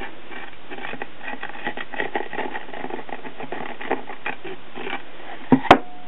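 Crinkling and small clicks of a crumpled glue tube being squeezed and handled while trim is pressed along a canvas edge, over a steady hiss. Near the end come two sharp knocks in quick succession, the loudest sounds.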